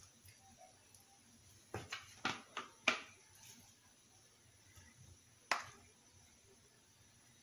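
A quick run of about five sharp clicks and knocks, then a single knock a couple of seconds later: a red plastic bowl being handled over a marble counter as sausage, pepper and onion filling is tipped and scraped out of it onto rolled-out dough.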